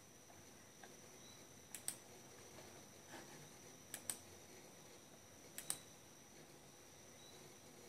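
Computer mouse button clicked three times, each a quick press-and-release double click, about two seconds apart, over a faint steady high whine.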